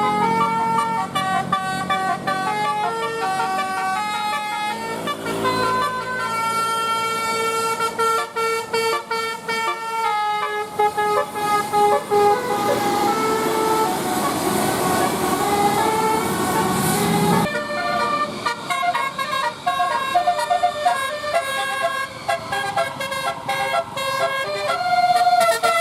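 A bus's telolet musical air horn of the Basuri type playing a tune of held notes that step from pitch to pitch, with a hissing rush under it in the middle. The tune breaks off about two-thirds through and a different run of horn notes begins.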